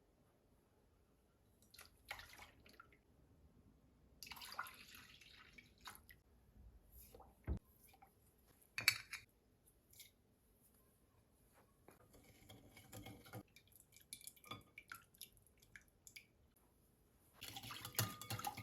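Quiet scattered taps and clicks of household handling, with a few short noisy stretches, the loudest near the end.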